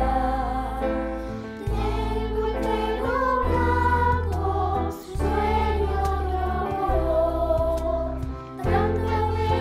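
Children's choir singing with an instrumental backing of held low bass notes that change every second or so.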